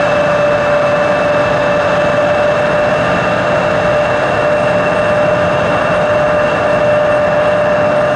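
Embraer 170's turbofan jet engines running steadily: a loud, even rush with a steady whine on top.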